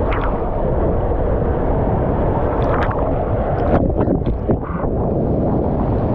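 Water rushing through an enclosed water-slide tube as a rider slides down it, picked up by a camera carried along, so the steady loud rush is mixed with wind noise on the microphone. A few brief, sharper sounds cut through around the middle.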